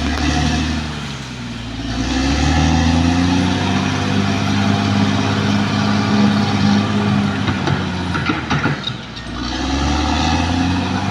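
Caterpillar D6R XL bulldozer's diesel engine running under load, its pitch sagging about a second in and again near the end, then climbing back each time. A few short knocks come around eight seconds in.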